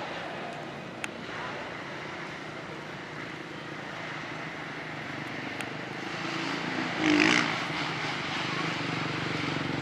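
Motocross bike engines droning steadily from the track, with a brief louder burst about seven seconds in and the engine sound growing louder near the end.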